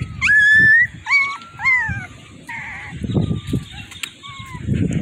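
German shepherd whining: one long high-pitched whine rising slightly near the start, then several shorter whimpers that rise and fall, growing fainter.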